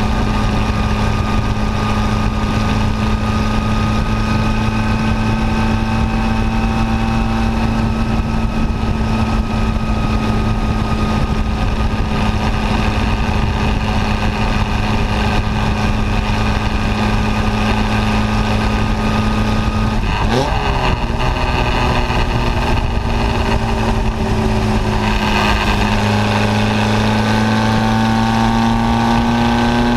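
Formula Junior racing car's engine heard from onboard at high revs, a steady, loud note with rushing noise under it. About two-thirds of the way through the pitch dips briefly and comes back, and near the end the note changes and climbs as the car accelerates.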